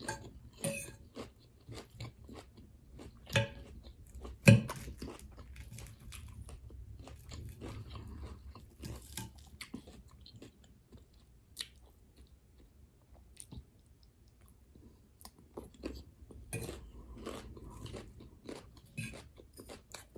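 A person chewing a mouthful of raw garden salad, with irregular crisp crunches of raw vegetables throughout; two louder crunches come a few seconds in.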